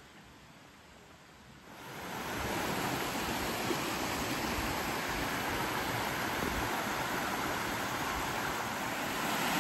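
Steady rush of a fast-flowing creek running over rocks and shallows. It comes in sharply about two seconds in, after a faint, quiet start.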